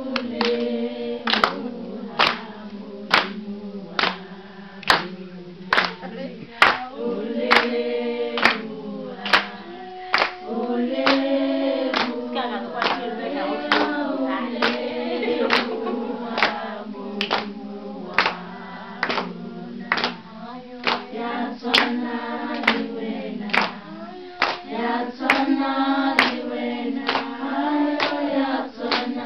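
A group of Basotho women singing a hymn of thanks in Sesotho, unaccompanied. Steady hand claps keep time about once a second.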